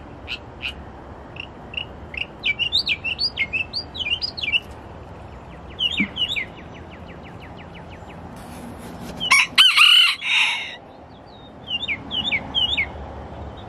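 A rooster crows once, loudly, about two-thirds of the way through, a single call of about a second and a half. Small birds chirp in quick hooked notes before and after it.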